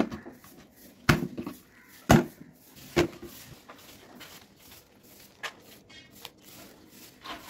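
Kitchen handling noises: several sharp knocks and taps, the loudest about one and two seconds in, with quieter ones spread through the rest.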